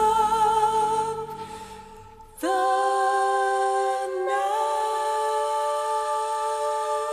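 Women's voices holding the closing sung notes of a musical-theatre song. A held note with low accompaniment fades out, then unaccompanied voices enter on a new sustained chord about two and a half seconds in, shifting slightly a couple of seconds later.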